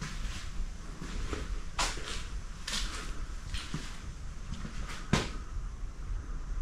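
Scattered knocks and scuffs of someone moving through a cluttered basement: a handful of sharp knocks at uneven gaps, the loudest about five seconds in, over a low steady rumble.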